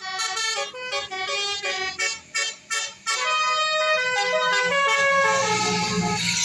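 Telolet horn, a set of electric trumpet horns, playing a tune of quickly changing notes. Short toots with a brief break about two to three seconds in give way to longer held notes. The noise of the passing vehicle swells near the end.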